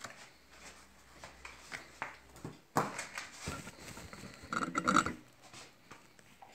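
Pastry brush dipped into a plastic bowl of beaten egg and dabbed over rolled pastry spirals: soft scrapes and light taps, with a sharper knock a little under three seconds in and a busier patch of handling noise around five seconds.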